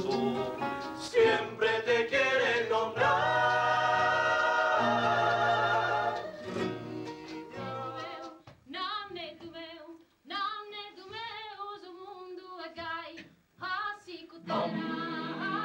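A male vocal group singing in harmony to acoustic guitars, with long held chords. About eight seconds in it thins to a single voice singing alone with vibrato, in short phrases with pauses, and fuller group singing comes back near the end.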